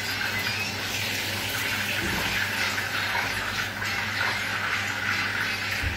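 Breaded chicken fillets sizzling as they fry in a pan of hot oil: a steady hiss.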